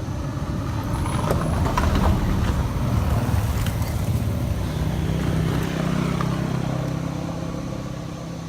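A motor vehicle passing close by, its engine and road noise building to a peak in the first few seconds and then slowly fading away.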